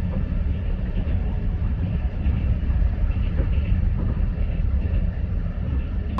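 A moving passenger train running, a steady low rumble with rolling noise and no distinct clicks or horn.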